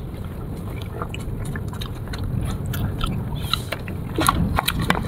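A person chewing and biting into sour fruit close to the microphone: a run of short, crisp clicks and crunches that come thicker in the second half, over a steady low rumble.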